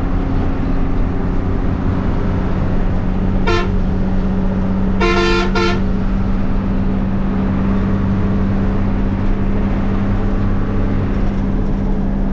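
Steady drone of a moving bus's engine and road noise from inside the cabin, with a horn sounding: one short toot about three and a half seconds in, then two quick toots around five seconds.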